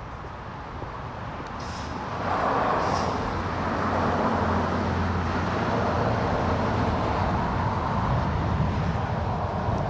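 Motor vehicle engine running with a steady low hum; the noise swells about two seconds in and then holds.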